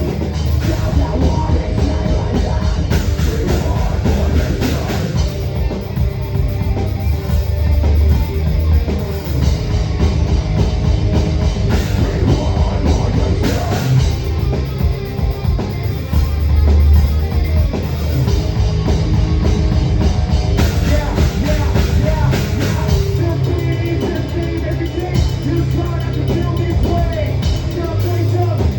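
Drum kit played close up in raw, unmixed sound during a heavy metal song, with the rest of the band underneath. The hits come fast and dense without a break.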